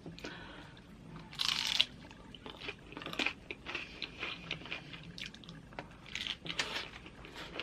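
Close-up crunching and chewing of loaded nachos, tortilla chips breaking between the teeth, with the loudest crunch about a second and a half in.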